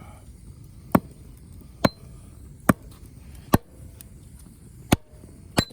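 Firewood being chopped: six sharp, separate blows, roughly one a second.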